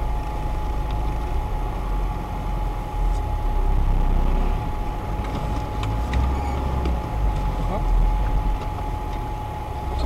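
An off-road 4x4's engine running at low speed, heard from inside the cabin as a low rumble that swells and eases as the vehicle creeps forward. A steady high whining tone runs under it, with a few faint clicks.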